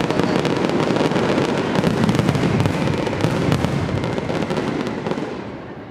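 Fireworks display: a dense barrage of rapid crackling reports over a low rumble, easing off near the end.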